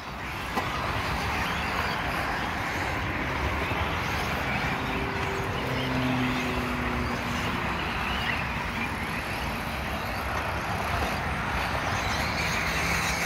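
Electric RC buggies racing around a dirt track: a steady rushing noise that swells about half a second in and holds.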